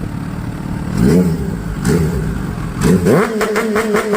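Kawasaki Ninja H2 supercharged inline-four with an Akrapovič exhaust, running and blipped three times, about 1, 2 and 3 seconds in. Then the revs are held steady from about three seconds in.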